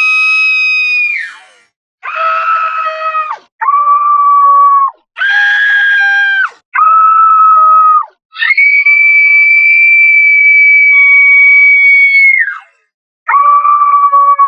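A string of shrill horror-style screams, each held at a nearly steady high pitch and then cut off sharply, with short silent gaps between them. The longest scream lasts about four seconds, near the middle.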